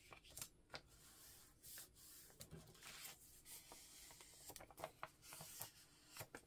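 Faint rustling and small taps of paper and cardstock being handled and moved about on a table.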